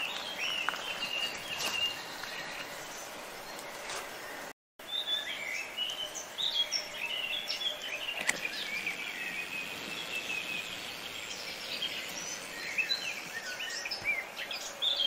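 Garden birds chirping and trilling over a steady hiss of outdoor background noise, with a brief dropout about four and a half seconds in.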